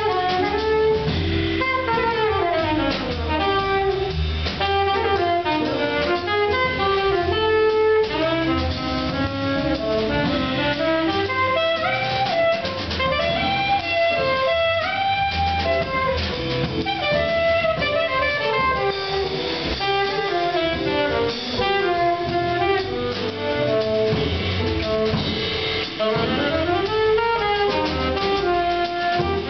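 Small jazz combo playing: a saxophone solos in long, running phrases over upright bass, drum kit and chordal accompaniment.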